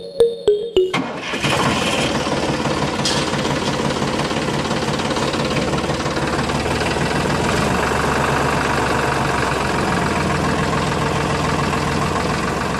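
Tractor engine running steadily, beginning about a second in.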